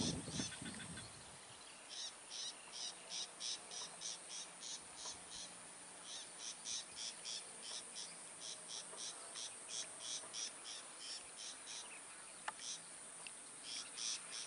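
An insect chirping in a steady rhythm, about three short high-pitched chirps a second, pausing briefly about halfway through.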